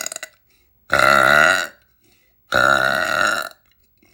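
A young woman burping loudly. The tail of one burp ends just at the start, then two more long burps of under a second each follow, about a second in and near the middle, with short silences between.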